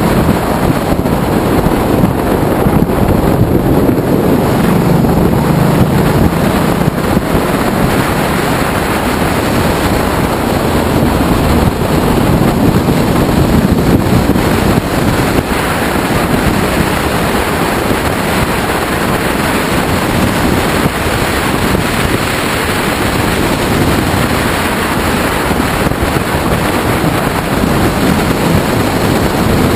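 Loud, steady wind rush buffeting the microphone of a camera riding on a moving Ducati Multistrada motorcycle, with the bike's engine running underneath.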